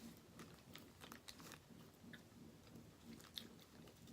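Faint chewing of a chewy grape candy, with small scattered mouth clicks.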